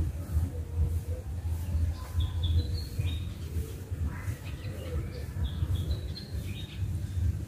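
Small birds chirping off and on, in short high notes, over a steady low rumble.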